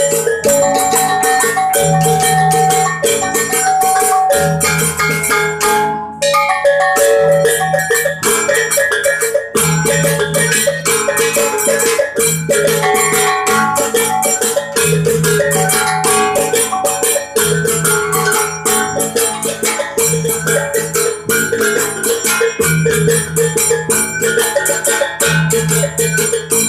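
Lampung gong-chime percussion ensemble playing a tabuh: fast, dense strikes on tuned gongs over a steady beat, with low gong tones changing every second or two and a brief drop about six seconds in.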